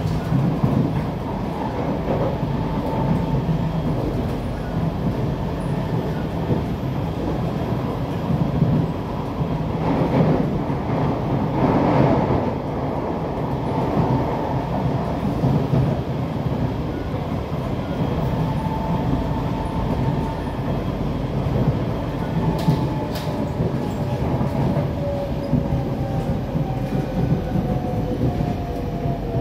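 Inside the carriage of a Kawasaki-Sifang C151B metro train running on the line: a steady rumble of wheels on rail, a louder rush around the middle and a few sharp clicks. Over the last several seconds a motor whine falls in pitch.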